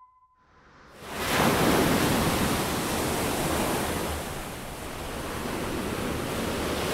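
Surf breaking and washing up on a sandy beach: a steady rushing wash of waves that fades in about a second in.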